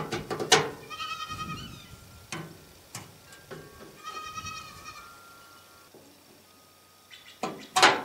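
Sharp clicks and taps of an aluminum turn-signal bezel being pressed and snapped into its opening on a 1959 GMC 100's front end. The loudest is about half a second in, another comes near the end, and smaller taps fall in between. Twice, a high, wavering animal call sounds in the background.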